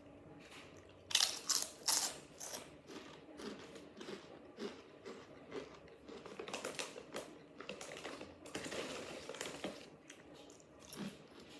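Crunching and crinkling of Smith's Double Crunch potato chips: irregular sharp crackles, the loudest just after a second in, with a denser stretch of crackling later on.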